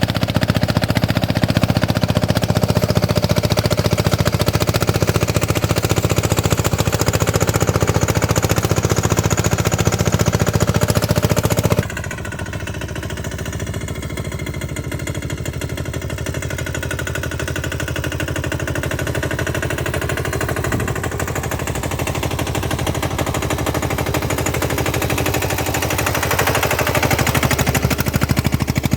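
Jyoti three-wheel tractor engine running with a fast, even thudding beat. The sound drops suddenly about twelve seconds in, then slowly grows louder again.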